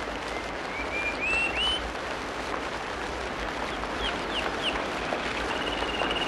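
Steady rain falling, with songbirds whistling over it: a few rising notes in the first two seconds, quick downward-slurred notes about four seconds in, and a held trilling note near the end.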